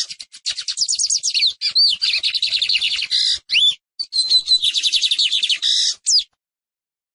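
Lined seedeater (Sporophila lineola) singing: a long, fast run of high chirps and trilled notes with quick pitch sweeps. There is a short break about four seconds in, and the song stops a little after six seconds.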